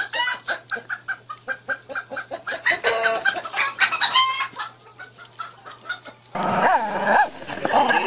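Chickens clucking in a rapid run of short calls, cut off about six seconds in by a louder stretch of voices.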